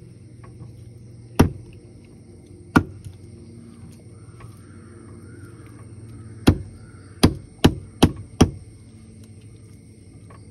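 A fish vendor chopping fish with a heavy knife on a wooden chopping block: seven sharp chops, two spaced well apart, then a quick run of five about two a second.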